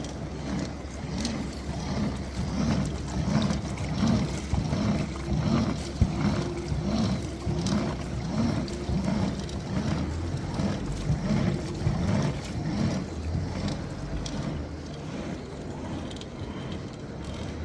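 Pedal-driven washing machine, an old washing machine drum turned by a bicycle through a 1:13 gearbox, running: water and clothes churning in the drum with an even rhythmic surge of about two a second. A faint steady hum fades out about ten seconds in.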